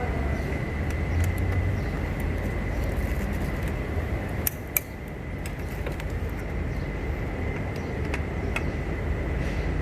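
A few sharp metallic clinks of tools and engine parts being handled, the loudest a little before the middle, over a steady low hum with a faint high whine.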